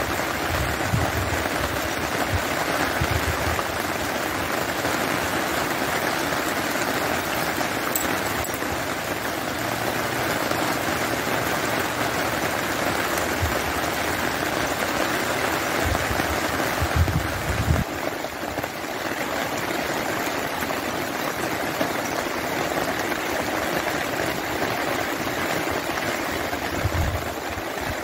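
Steady rain falling on wet ground, an even hiss. A few brief low rumbles come through it, the strongest about two-thirds of the way in.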